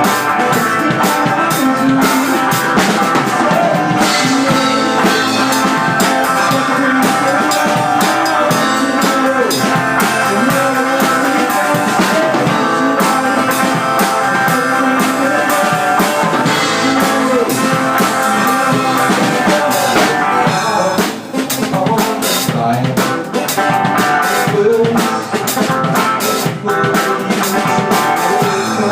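Rock band playing live, heard close to the drum kit: drums with electric guitar. About 21 seconds in, the full sound thins briefly and the drums come more to the fore.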